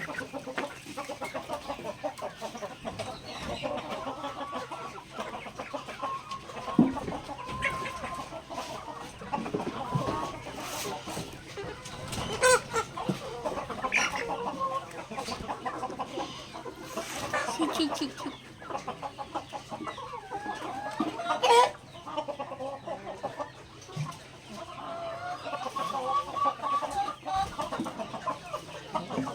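Backyard chickens clucking on and off throughout, with a few sharper, louder calls standing out about halfway through and again around two-thirds of the way in.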